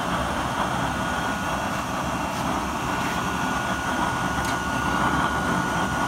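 Blower-fed gas burner running on a low blue flame during a test fire: the steady rushing whir of its electric blower and the burning gas, with a thin steady whine above it.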